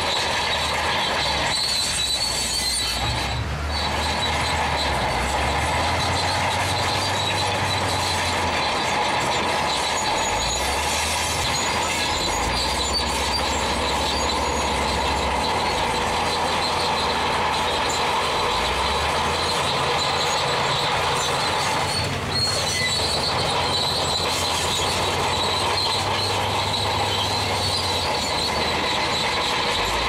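Crawler bulldozer at work: steel tracks squealing and clanking over a continuous din, with the diesel engine's low note shifting up and down several times as it loads and eases off.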